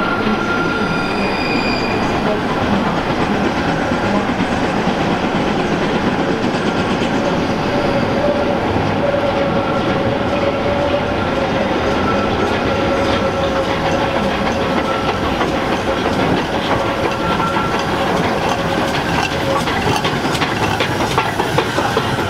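Rhaetian Railway steam-hauled train of historic wooden coaches approaching and passing close by, a steady rumble of the running train with wheels clattering over the rail joints.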